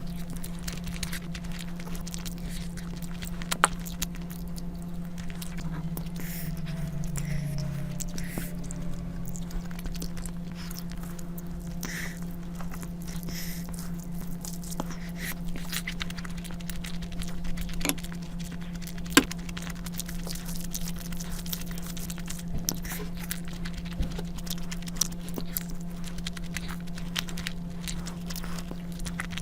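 Close-miked eating of curry and rice: wet chewing, smacking and mouth clicks, with a few sharper snaps, over a steady low hum.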